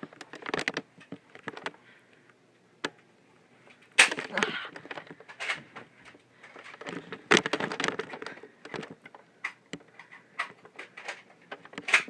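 Fabric rustling and knocks from a handheld phone camera being moved about among blankets and bedding, with a few sharper thumps, one about four seconds in and another a little past seven seconds.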